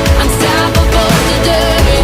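Background music: a loud, dense produced track with a steady beat and a gliding melody line.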